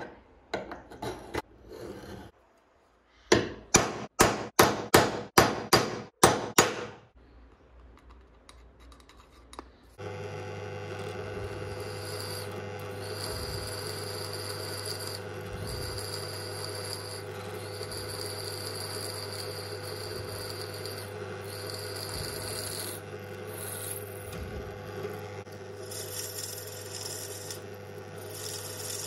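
A pointed metal scribing tool scratches layout lines into the dye on a steel knife blank: a few uneven strokes, then a quick run of about nine sharp scratches. About ten seconds in, a benchtop drill press starts and drills into the steel blank's handle, a steady motor hum with a high whine that drops out every few seconds.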